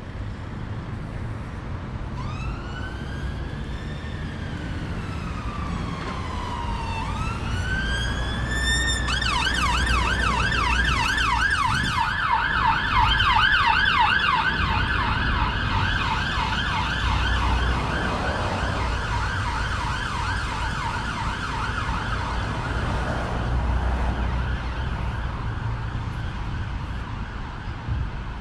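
Ambulance siren passing on the road. It begins with two slow rising-and-falling wails, then switches to a fast yelping warble that grows loudest midway and then fades away. Low traffic rumble runs underneath.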